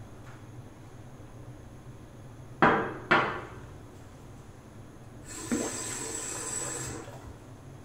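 Two sharp knocks about half a second apart, each with a short ringing tail, then a bathroom sink tap runs for about two seconds and shuts off.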